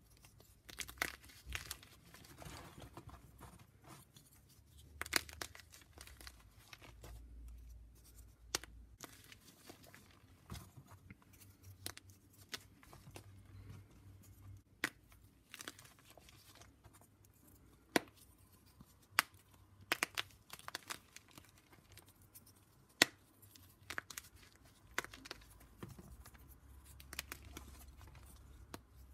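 Blocks of gym chalk being broken up and crumbled: irregular crisp snaps and crunches, a few much louder than the rest, over a soft gritty crumbling.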